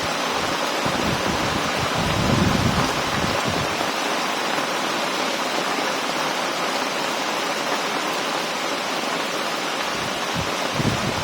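Heavy rain pouring steadily in a thunderstorm, with a low rumble about two seconds in and another near the end.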